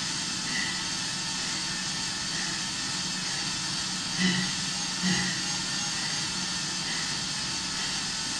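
Steady whirring of a cycling ergometer's rear-wheel brake under hard pedalling, with heavy breathing through a gas-analysis mask rising and falling about once a second.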